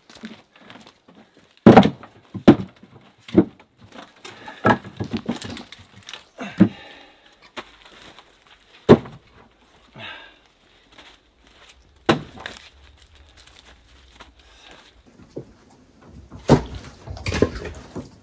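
Split firewood being stacked: wooden knocks as pieces are set and dropped onto the woodpile, one every second or few, with a quick clatter of several pieces near the end.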